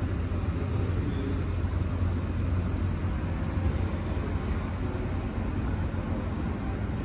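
Steady low background rumble of traffic, with a constant low hum underneath and no clear events.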